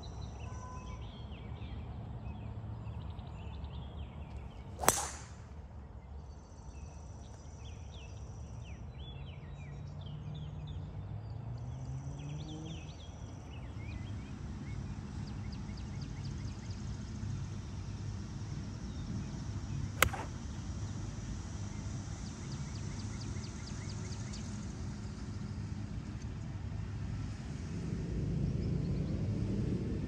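Golf club striking the ball twice, about fifteen seconds apart: two sharp cracks, the first a few seconds in and the second about twenty seconds in, with birds singing.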